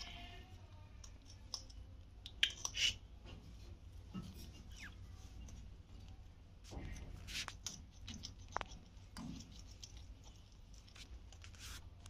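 Alexandrine parakeets in a wire cage: scattered clicks and scratches of beaks and claws on the wire mesh, with short crunchy bites, over a low steady hum.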